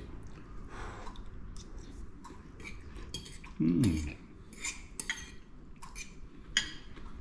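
A metal fork clinking and scraping on a ceramic plate during eating, a string of light separate clinks. A little after halfway there is one short vocal sound falling in pitch, like an 'mm'.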